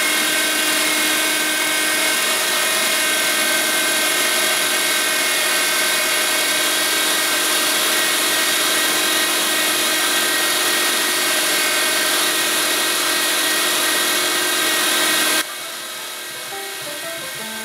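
Guide Gear 350-watt electric meat grinder running steadily while grinding chunked deer meat: a loud, even motor whine with several fixed tones. About fifteen seconds in it cuts off abruptly and music starts.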